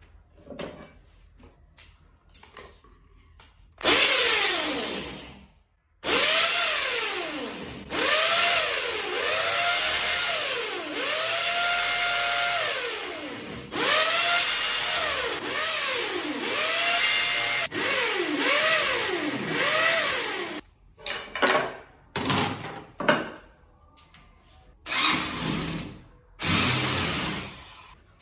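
Corded electric drill boring holes into a hard hollow-block wall, loud, its motor pitch repeatedly rising and sagging as the bit bites. It runs in long stretches from about four seconds in to about twenty seconds, then in several short bursts near the end.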